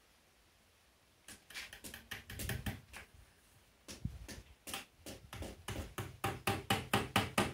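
Hammer driving nails into soft wood: a few light taps, a pause, then a steady run of blows at about four a second that grow louder near the end.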